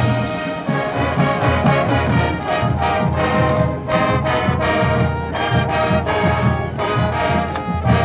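High school marching band playing: the brass section sounds sustained chords over regular drum hits.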